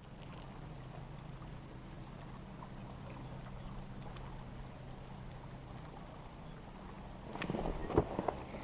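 A boat motor running at a steady low hum over the lake, with a few light knocks against the boat near the end.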